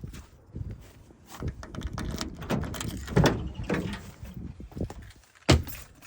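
Rummaging through storage for a lock pinning kit: boxes and parts clattering and rattling as they are handled, with one sharp knock near the end.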